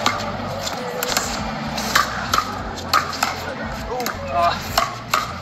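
Pickleball paddles striking a hard plastic ball in a rally: sharp pops at an uneven pace, about one or two a second.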